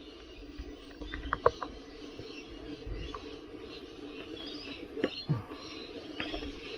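Scattered light clicks and short squeaks from hands and tools working the tyre on an electric unicycle wheel, over a faint steady hum.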